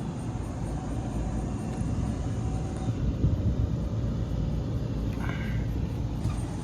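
Rooftop HVAC unit running: a steady low rumble with a faint steady hum.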